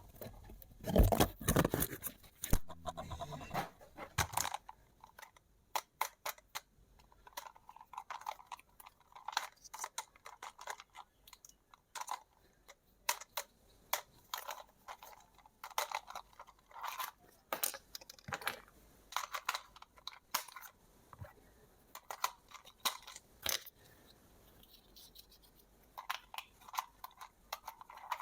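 Toy packaging being handled and unpacked: irregular crinkling, tearing and scraping with scattered short clicks, loudest in a burst about a second in.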